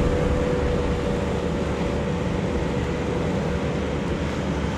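Steady beach ambience: a wash of surf and wind rumble on the microphone, with a faint steady low hum running under it.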